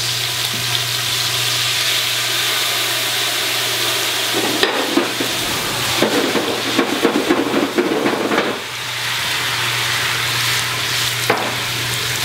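Chicken in a stainless pot sizzling steadily in hot fat. About four and a half seconds in, brandy is poured in and flambéed, and for about four seconds a louder, crackling rush rises over the sizzle before it settles back to steady frying as the alcohol burns off.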